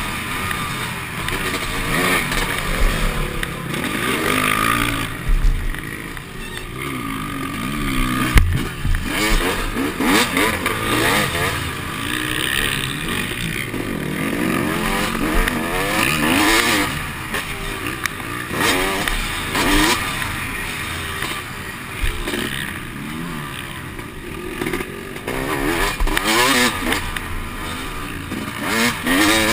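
Motocross dirt bike's engine revving hard and falling off again and again as the rider works the throttle through the gears. A sharp knock comes about eight seconds in.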